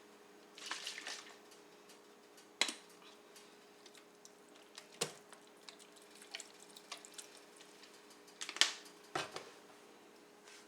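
Soy sauce being poured from a bottle into a bowl of pork cubes for a marinade, with a few sharp clicks and taps from the bottle and utensils. A faint steady hum runs underneath.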